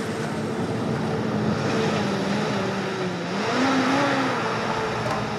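Engine of an old converted school bus running as it drives on a dirt road, with a steady engine note over road noise. The note dips about three seconds in, then rises and falls again.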